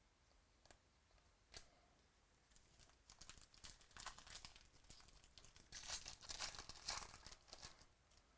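Faint crinkling and tearing of a foil trading-card pack wrapper being ripped open, after a single click. The crackle builds from about two and a half seconds in and is loudest near the end.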